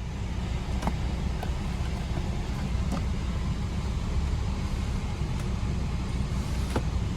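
Steady low rumble of aircraft cabin noise inside a Boeing 777-200ER, with a few faint clicks.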